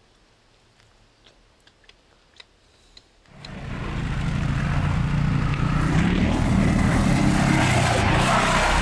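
Several quad bikes (ATVs) driving past close by on a dirt track, their engines running loud and steady. They start suddenly a little over three seconds in, after a quiet stretch with a few faint clicks.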